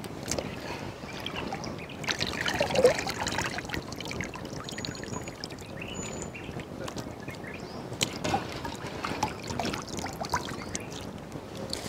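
Water trickling and splashing into a pot as lobster meat is rinsed and squeezed out by hand, with small irregular wet ticks and drips.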